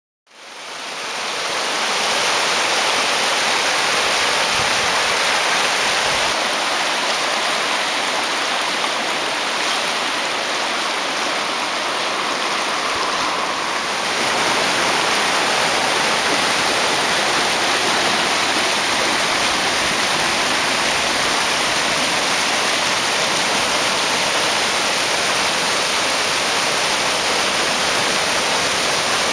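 Rushing whitewater of a narrow rapids pouring over boulders: a steady, loud rush that fades in over the first two seconds and shifts slightly in character about halfway through.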